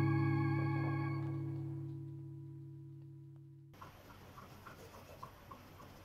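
Background music: a held organ-like chord slowly fading, then cut off abruptly a little past halfway. After it only faint room sound with a few light ticks remains.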